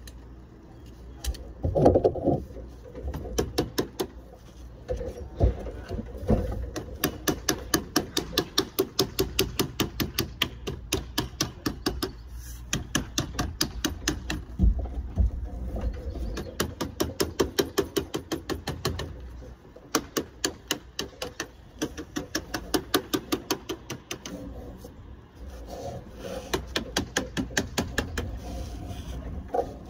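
Rapid, even tapping of a leadworking tool on sheet lead, about seven taps a second, in runs with short pauses and a few heavier knocks.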